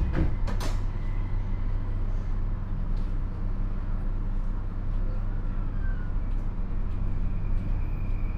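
JR East E235 series electric train car at a station stop. The doors shut with two sharp knocks, the closing and then the latching click of the door lock, and a steady low hum follows. Near the end a steady high-pitched whine comes in from the Mitsubishi SiC VVVF inverter as the train starts to move off.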